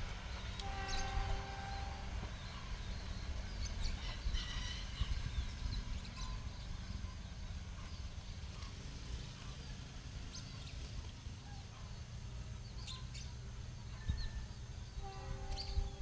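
Outdoor ambience: a steady low rumble with scattered bird chirps, and two short, steady pitched tones, one about a second in and one near the end.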